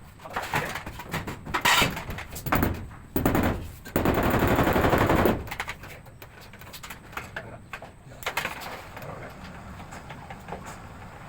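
Sharp knocks and taps from work on the wall, then a loud burst of rapid impacts lasting just over a second, with quieter scattered knocking after it.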